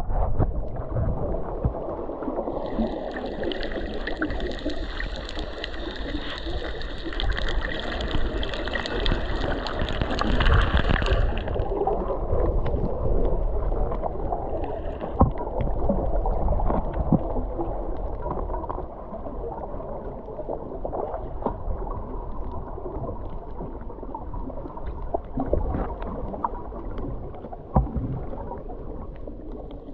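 Water sloshing and gurgling around the camera, muffled, with scattered small clicks. A higher hiss joins a few seconds in and cuts off suddenly about eleven seconds in.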